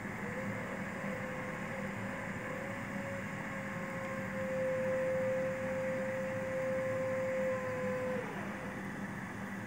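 Steady machine hum with a whirring hiss, like a small motor or fan running. A clear hum tone holds steady, then drops in pitch and stops about eight seconds in.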